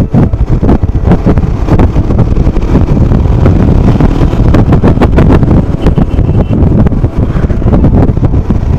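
Royal Enfield Himalayan motorcycle being ridden, its single-cylinder engine running under heavy wind buffeting on the microphone.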